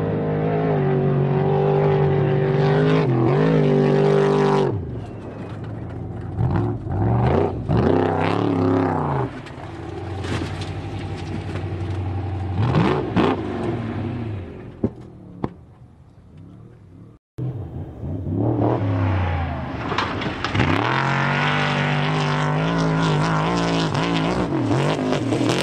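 Off-road race truck engines revving hard, their pitch climbing and dropping with throttle and gear changes, across several short spliced clips. There is a quieter stretch about fifteen seconds in, then a loud engine revving again from about eighteen seconds.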